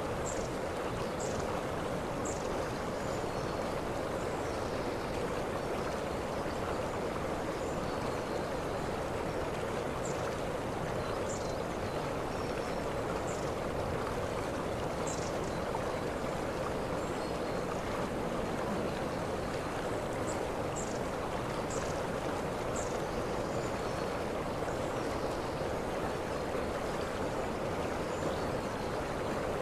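Waterfall: a steady, even rush of falling water, with faint short high chirps every second or two.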